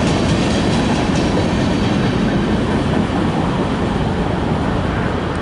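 Freight train's last cars rolling past on the rails, with a steady rumble of wheels on track.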